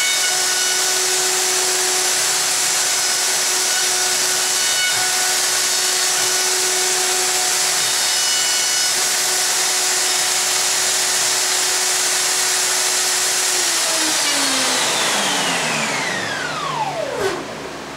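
Festool OF2200 plunge router running steadily at full speed with a vacuum drawing through it, then switched off and winding down, its pitch falling over the last few seconds while the vacuum keeps hissing.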